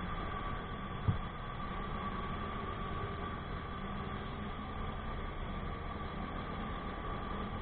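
Motorcycle engine and road noise while riding slowly in traffic, steady, with one short thump about a second in.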